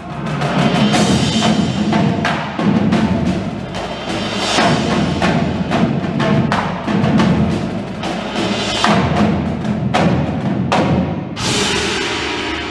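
Indoor drumline playing: marching snare, tenor and bass drums beat out rapid, dense rhythms over the front ensemble's marimbas and other mallet percussion. The drum strikes break off about a second before the end.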